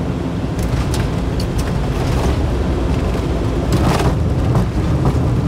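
Airliner cockpit during touchdown and landing roll: a loud, steady low rumble of the wheels on the runway and the engines, with several short clicks and rattles, the strongest about four seconds in.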